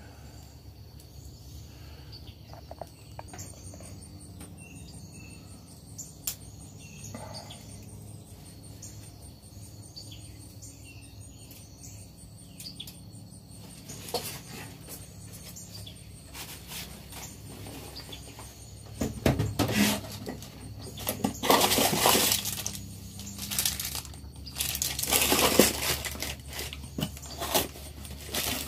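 Rustling and light clicking as a forced-air full face mask and its cardboard box are handled, with louder rustles in the last third, over a steady low hum.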